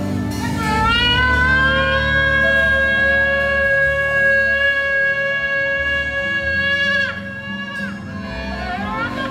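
Shofar blast: one long, steady note that slides up to pitch at the start and drops away about seven seconds in, with a second blast sliding in near the end. A low sustained musical drone runs underneath.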